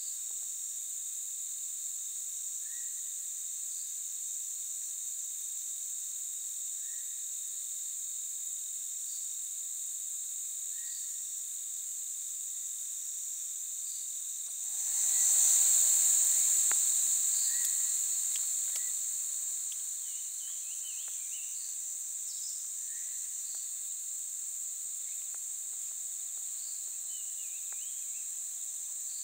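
A steady, high-pitched chorus of insects in forest, with faint short chirps every couple of seconds. About halfway through, the chorus swells sharply louder, then fades back over a few seconds.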